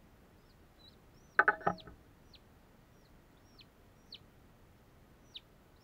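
Newly hatched Crested Cream Legbar chick peeping: short, high calls that slide downward, repeating irregularly about one or two a second. A short, much louder burst of sound about a second and a half in is the loudest thing here.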